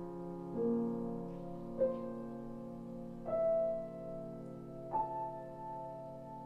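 Sparse contemporary chamber music led by a Steingraeber & Söhne grand piano. Four single notes are struck about every second and a half, and each rings on over long held tones.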